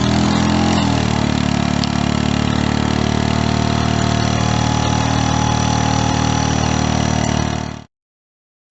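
Small engine running steadily with a fast even pulse, its pitch dropping slightly about a second in as if it takes load, then cutting off suddenly near the end.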